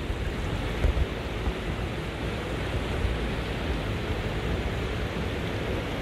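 Steady rushing of water in a mountain stream, with a few low thumps about a second in.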